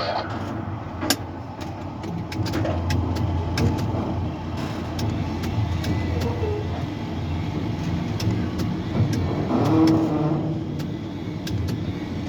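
Steady low machinery rumble with many scattered sharp clicks and ticks, swelling slightly about ten seconds in.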